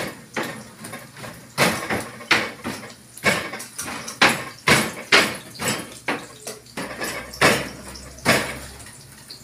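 An irregular series of sharp knocks and taps, about one to two a second, dying away near the end.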